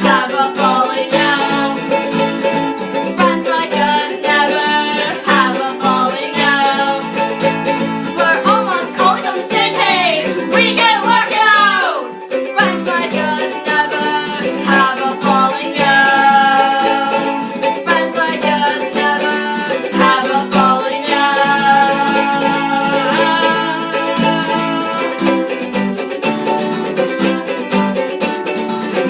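A band's song playing, led by plucked string instruments, with full, continuous music throughout.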